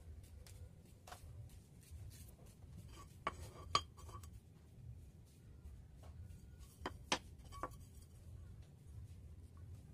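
Sharp metal clicks and clinks as an electric hand planer's metal parts and hand tools are handled on a wooden workbench: two about three and a half seconds in, three more around seven seconds. A faint steady low hum runs underneath.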